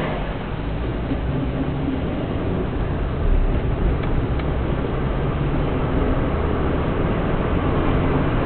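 Engine and road noise of a moving vehicle: a steady low rumble that grows slightly louder.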